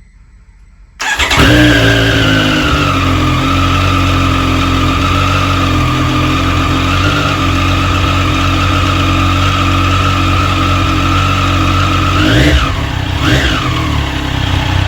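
2020 Triumph Street Triple RS's 765 cc inline three-cylinder engine starting about a second in and idling steadily, its pitch easing down a little as the idle settles, then two quick throttle blips near the end before it cuts off. The engine is being run after a K&N high-flow air filter has been fitted.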